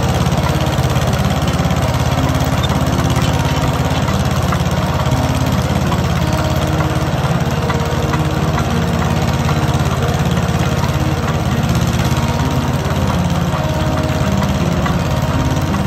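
Ditch Witch J20 trencher's twin-cylinder 18-horsepower Wisconsin air-cooled engine running steadily with an even low pulse while the trencher's digging chain cuts a trench.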